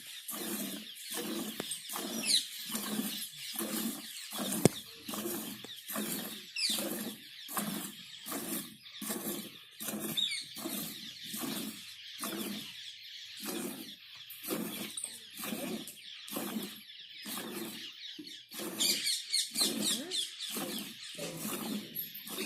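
Cow being milked by hand: rhythmic squirts of milk into a pail, a little under two strokes a second. There is a few faint bird chirps and a single sharp click.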